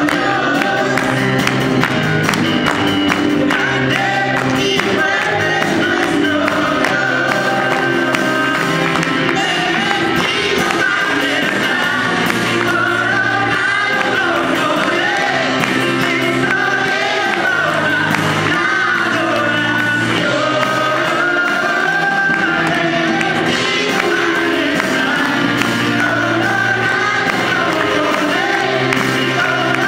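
A group of children singing a song together into microphones, backed by a live band of electric guitar and keyboard with a steady bass line.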